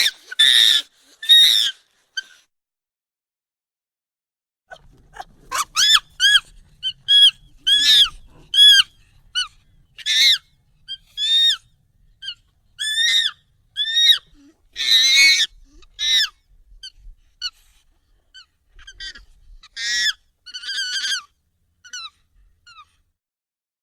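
Monkey calls, sped up and pitched up: a string of short, high, squeaky calls, each rising and falling in pitch. A few come first, then after a pause a long quick run, thinning out near the end.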